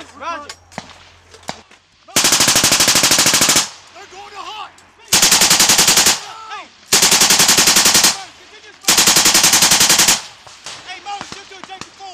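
Belt-fed machine gun firing four sustained bursts, each a rapid, even rattle of shots lasting a second to a second and a half, with pauses of a couple of seconds between them.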